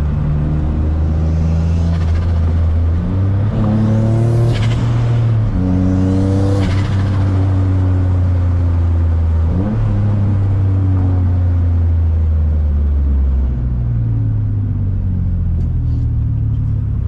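Single-turbo Nissan G35's 3.5-litre V6 running under way, heard from inside the cabin. The engine's pitch rises and drops several times as it pulls and changes gear.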